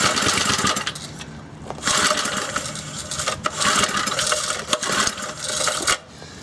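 Briggs & Stratton 60102 2 hp single-cylinder engine being pull-started with the choke off: the recoil starter cord rasps out about four times, a second or so apart, as the engine turns over and nearly catches but does not keep running. The owner traces the hard starting to an intake leak at the carburettor gasket.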